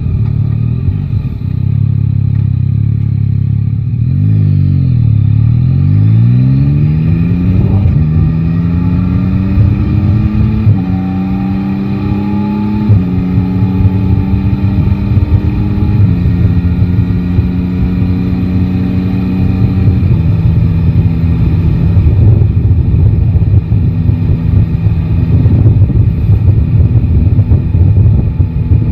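Yamaha Tracer 9 GT's inline-three engine from the rider's seat: about five seconds in the engine speed drops and then picks up again, and the bike accelerates with the pitch climbing and changing in steps at gear changes before settling into a steady cruise. A constant low rumble of wind and road runs underneath.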